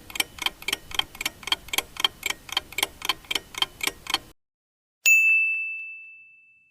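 Countdown-timer sound effect: a clock ticking evenly, about four ticks a second, stops about four seconds in. Under a second later a single bell ding rings out and fades away, marking the end of the choosing time.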